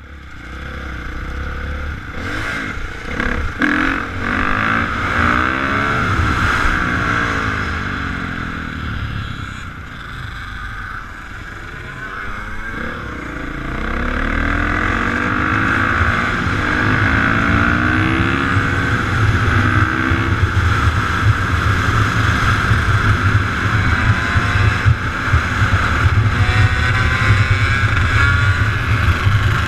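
Several dirt bike and four-wheeler engines revving, their pitch climbing and dropping as they rev and pass, over a steady low engine drone that grows louder about halfway through.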